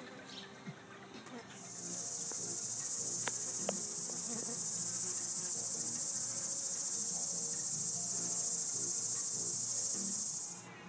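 A singing insect's steady, high-pitched buzz that swells in over the first couple of seconds, holds, and cuts off sharply near the end.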